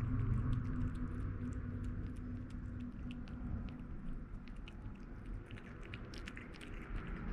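Kitten eating wet canned cat food: a run of small, quick chewing and smacking clicks over a steady low hum.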